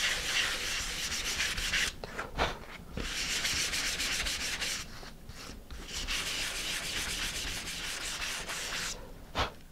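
220-grit sandpaper on a sanding block rubbing back and forth over a balsa wood sheet to smooth it, a run of quick strokes with short breaks about two, five and nine seconds in.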